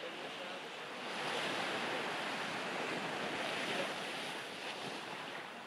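Surf washing onto a sandy beach: a steady hiss that swells about a second in and eases off near the end.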